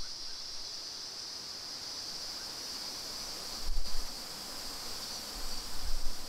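Steady, high-pitched insect chorus droning evenly in the bush. A few low rumbles on the microphone come about halfway through and near the end.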